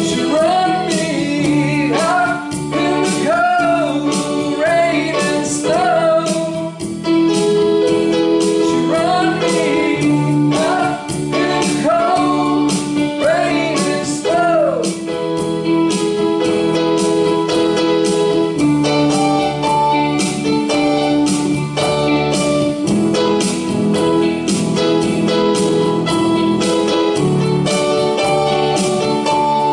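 Rock band music: a sung vocal line with bending pitch over the band for about the first half, then an instrumental passage led by keyboards.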